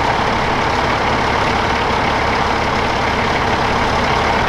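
Truck engines idling: a steady drone with a constant hum over it.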